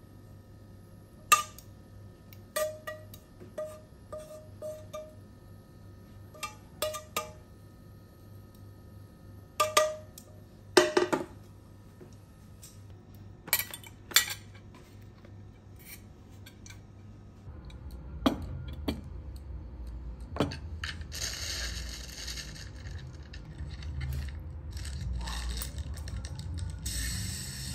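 Metal utensils clinking and tapping against a ceramic plate as food is served: about a dozen sharp clinks, each with a short ring, some in quick runs. In the last third come a few clinks of a fork and spoon on the plate over a steady hiss.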